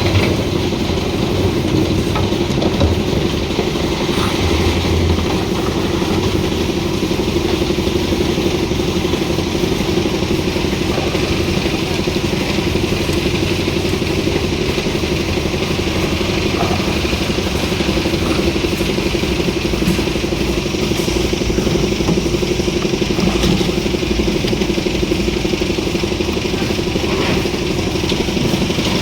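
Engine of a concrete mixer and lift machine running steadily at a constant speed.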